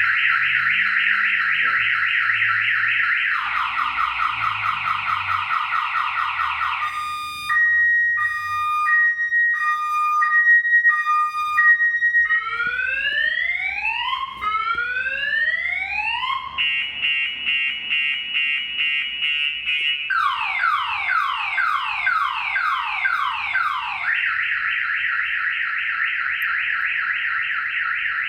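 Compustar aftermarket car alarm siren going off, set off by taps on the car's window glass. It cycles through its tones: a fast warble, a high-low two-tone, two slow rising whoops, a rapid buzzing chirp, a run of quick falling sweeps, then the fast warble again.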